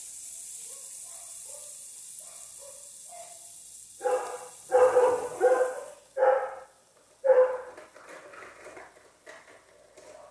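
A dog barking about five times, loudly, starting about four seconds in, with softer short yips before and after. Under the first part is a steady high hiss, the sizzle of the closed sandwich maker cooking the batter, which stops a little after the barks begin.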